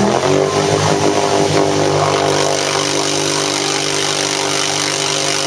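ATV engine running at a steady speed after its revs fall off right at the start, the quad stuck deep in a mud hole.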